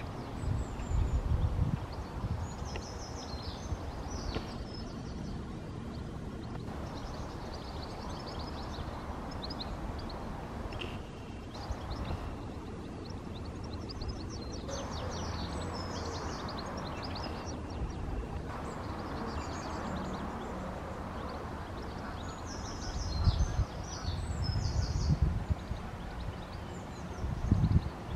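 Songbirds singing a dawn chorus: many short chirps and trills from several birds over a steady background hiss. Low rumbles of wind buffeting the microphone come at the start and again near the end.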